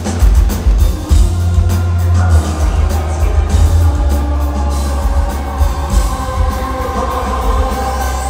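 Live pop concert music played loud over the venue's sound system, with a heavy bass and a drum beat. About two seconds in, held pitched tones come in over the beat.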